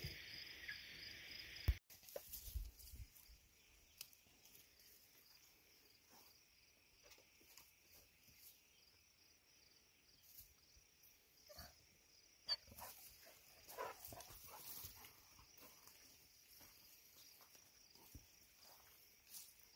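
Near silence: faint outdoor background with a few scattered soft clicks and rustles.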